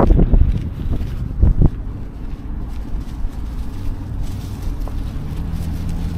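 Wind buffeting the microphone, a steady low rumble with a few short thumps about a second and a half in. A steady low hum joins near the end.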